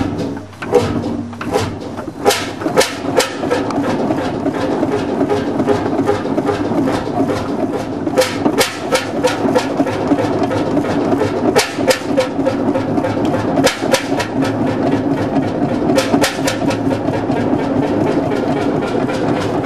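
Hundested 45 HP single-cylinder two-stroke hot-bulb (semi-diesel) marine engine running, a steady mechanical noise with frequent sharp clicks and knocks.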